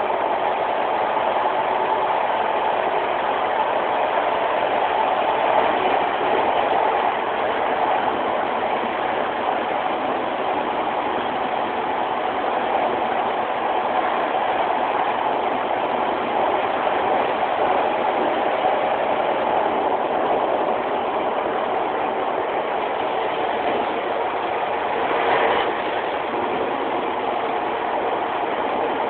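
Steady noise inside a Class 156 Sprinter diesel multiple unit: its underfloor Cummins diesel engine and running gear, with one brief louder knock about 25 seconds in.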